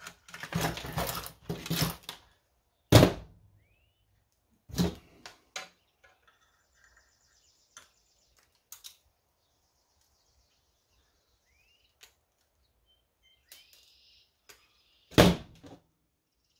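Wire crimper/strippers and wire being handled on a worktable: a rustle of wire, then a few sharp, loud clacks of the hand tool against the table, the last one near the end as the crimper is set down.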